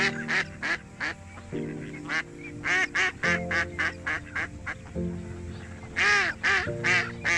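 Duck quacking in a run of short calls, about two a second, loudest about six seconds in, over background music with held chords.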